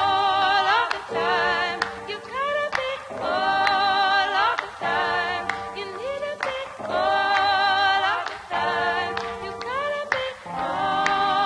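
Background music led by a sung vocal line with layered harmonies, held notes with vibrato and upward slides returning about every three seconds, with occasional sharp clicks.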